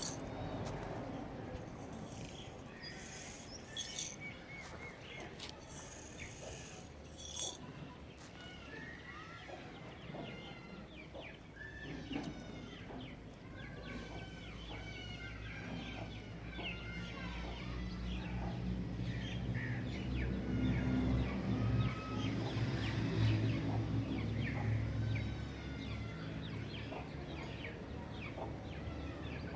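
Birds chirping, many short calls over one another. A low hum builds up under them and fades again near the end.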